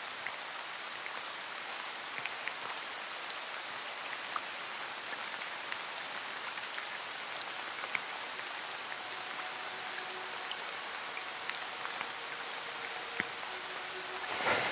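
Heavy, steady rain: a continuous hiss of falling water with scattered individual drops ticking sharply close by.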